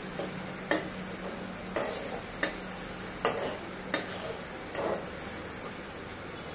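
A spatula knocks and scrapes against a black kadai about five times as eggs with onion are stirred, over a steady frying sizzle.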